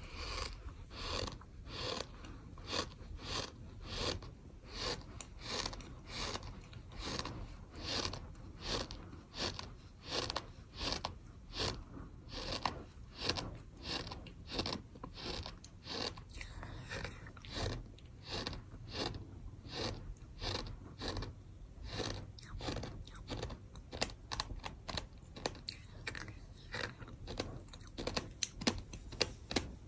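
Sand being chewed, a gritty crunch with each bite at about two chews a second, growing quicker and less even near the end.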